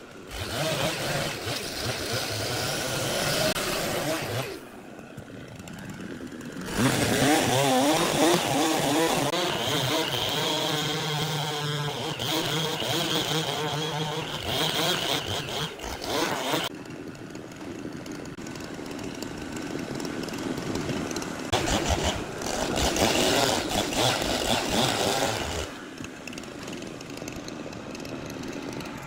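Long-bar gasoline chainsaw ripping lengthwise through a thick hardwood slab, running hard under load with its engine pitch wavering. Loud stretches of cutting alternate with quieter stretches.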